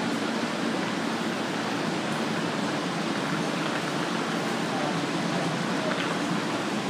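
Steady rushing hum of an R160 subway train standing at the platform with its doors open, with faint voices in the background.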